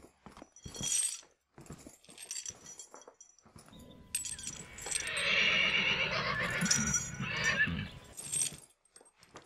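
Scattered light clicks and clatters, then a long, loud neigh-like animal call that starts about a third of the way in and lasts several seconds.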